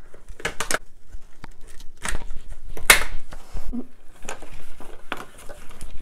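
Plastic parts of a toy upright vacuum cleaner clicking and knocking as the handle is pushed into place and the toy is handled: a string of sharp clicks, the loudest about three seconds in.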